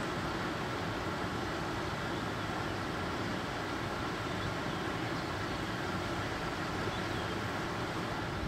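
Steady rushing of the fast-flowing Mara River, with a few faint high chirps.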